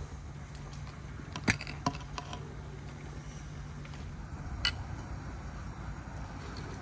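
A few light clinks of glass and crockery as tea things are handled on a table, the sharpest about a second and a half in, another shortly after and one near five seconds, over a steady low hum.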